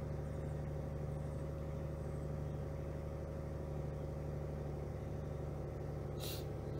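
Toyota Vitz three-cylinder engine idling steadily at a raised cold-start idle of about 1,450 rpm, the revs slowly settling. It has a freshly cleaned throttle body and mass airflow sensor.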